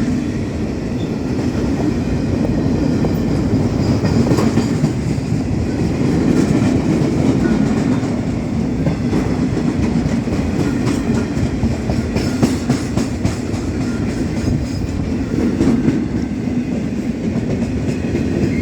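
Empty steel-coil freight wagons rolling past on the rails: a loud, steady rumble of wheels with a clickety-clack over the rail joints.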